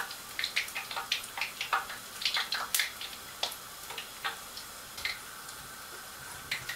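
Puff puff dough balls deep-frying in hot oil in a wok: irregular crackles and pops of spitting oil, thick at first and thinning out after about three seconds.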